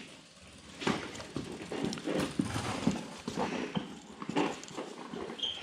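Irregular light metal clicks and taps of hand tools working on a Kohler K-series engine's ignition breaker points while the point gap is set with a feeler gauge.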